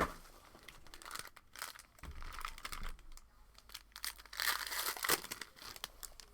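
Plastic trading-card packaging crinkling and tearing as a sports-card hobby box and its packs are torn open, in irregular rustling bursts with a sharp click at the start and the loudest crinkling about four to five seconds in.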